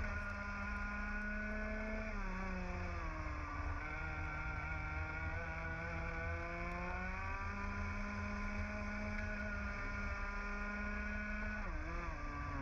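A 125cc two-stroke TAG kart engine racing at high revs: its note falls about two seconds in, as it comes off the throttle for a corner, climbs steadily along the straight, and dips again near the end.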